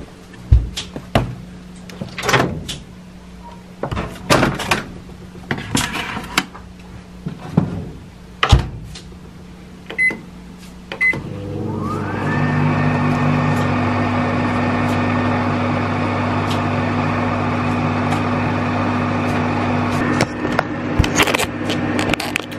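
Microwave oven reheating a bento. First come knocks and clatter as the food is put in and the door shut, then two short button beeps about ten seconds in. After that the oven starts and runs with a steady hum.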